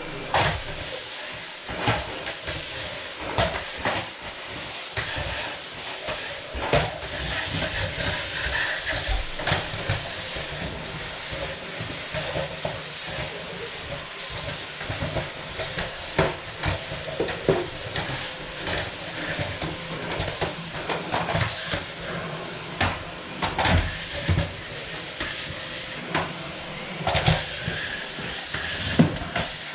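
A steady hiss runs under frequent, irregular knocks and clatter of objects being handled while cleaning.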